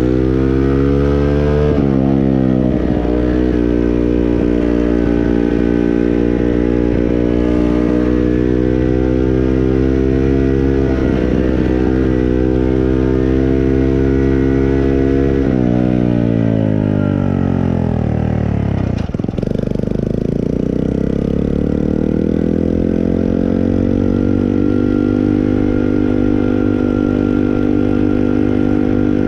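Moped engine running under way. Its pitch climbs at the start, holds fairly steady, falls away over a few seconds about two-thirds of the way in as it slows, then climbs again and settles.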